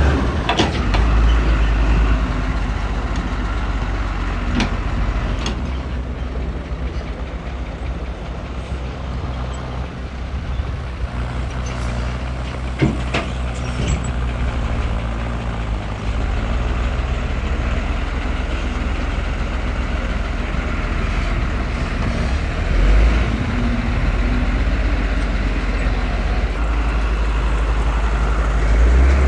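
Heavy diesel earthmoving machinery running under load, its engine steady and low, with a few sharp metallic clanks in the first half and a brief swell in engine sound about three quarters through.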